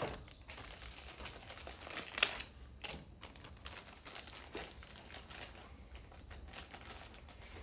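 Hands handling a heated grip and its cable at a motorcycle handlebar: irregular small clicks and rustles, with one sharper click about two seconds in.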